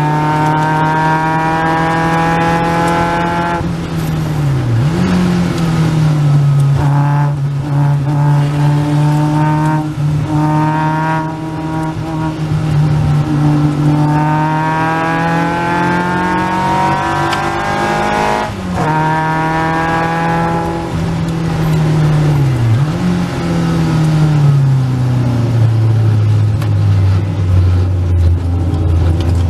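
A Caterham Seven's 2.3-litre Ford Duratec four-cylinder engine at racing pace. The pitch climbs through the revs and drops sharply at each gear change, then falls steadily in the last few seconds as the car slows.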